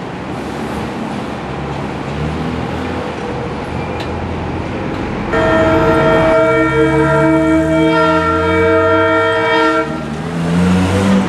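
EMD GA-8 diesel locomotive sounding its air horn: one long chord of several notes starting about five seconds in and lasting over four seconds, over a steady rumble.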